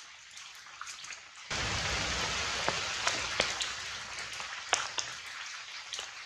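Scattered sharp crackles and ticks. About a second and a half in, a steady outdoor hiss begins abruptly and continues under further crackles.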